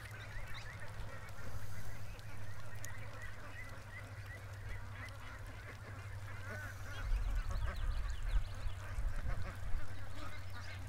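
Flock of domestic geese and ducks calling, many overlapping honks and quacks, busiest in the second half.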